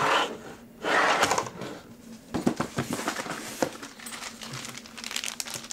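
Cardboard packaging rustling and scraping as a new chainsaw is pulled out of its box, then a quick series of hard plastic knocks and clunks as the saw is set down on a counter.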